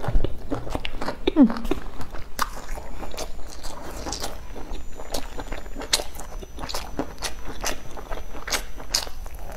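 A person chewing a mouthful of spicy stuffed flatbread sandwich with her mouth closed, close to the microphone: irregular mouth clicks and smacks throughout. A brief falling hum comes about a second and a half in.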